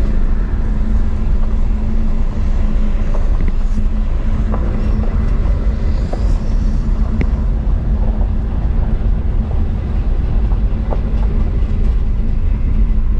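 A vehicle driving along an unpaved dirt road: a steady low rumble with a constant hum, and a few faint ticks scattered through it.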